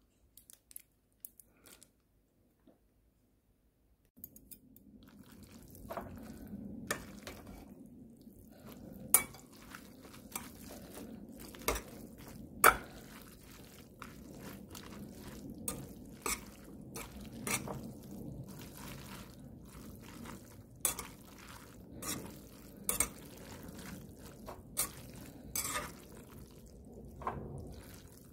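Metal chopsticks tossing sauced noodles in a ceramic bowl: a steady soft stirring noise with irregular sharp clicks of the chopsticks striking the bowl, starting about four seconds in after near quiet.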